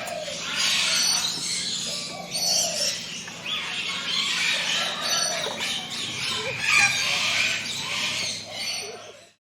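Many forest birds singing and chirping at once, a dense chorus of overlapping trills and short notes that cuts off suddenly near the end.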